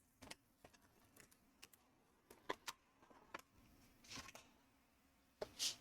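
Faint crinkling and clicking of packaging being opened and handled: scattered short rustles and ticks, with a slightly longer rustle about four seconds in and another near the end.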